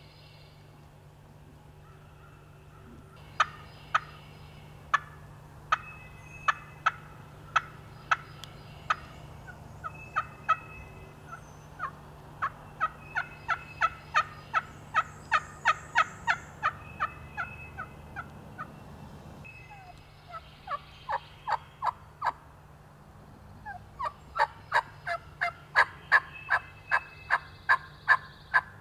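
Turkey calling in runs of short, sharp notes, at first about one a second, then in quicker strings of two or three a second, broken by short pauses.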